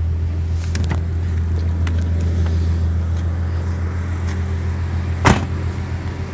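A 2013 Ford Mustang's 3.7-litre V6 idling steadily with a low hum. The driver's door shuts with a single loud thump about five seconds in.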